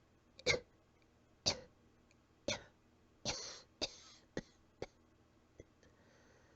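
A person coughing softly and weakly, a little out of breath: seven short coughs, the first three about a second apart, then a quicker run of four. A faint breath follows near the end.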